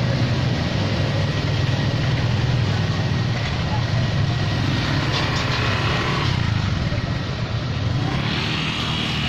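Street traffic: motorcycle and car engines running with a steady low rumble, with faint voices now and then.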